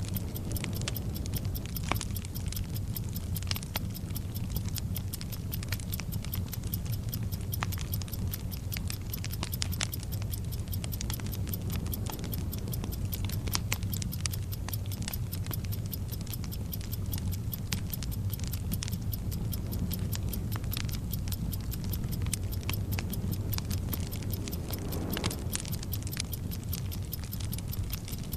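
Burning-fuse sound effect, a steady crackling sizzle with scattered sharp pops over a low rumble, layered with a fast, even clock-like ticking.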